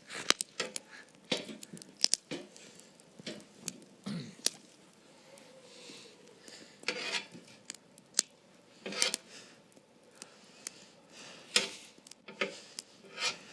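Irregular crackles and snaps with a few short rustles: a small campfire of damp wood and straw struggling to catch, with sticks being handled.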